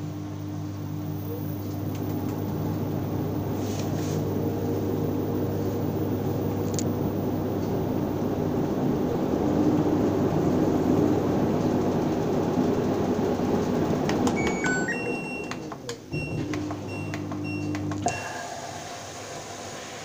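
Front-loading washing machine on a wash cycle: the motor hums steadily as the drum turns and swishes sudsy water. The sound grows louder through the middle, and the motor stops about two seconds before the end.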